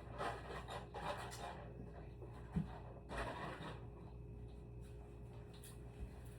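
Small wooden shim pieces being rubbed and fitted against the biwa, brief scraping sounds three times, with soft knocks near the middle and near the end. The shim lifts the strings off the curved part so they stop buzzing.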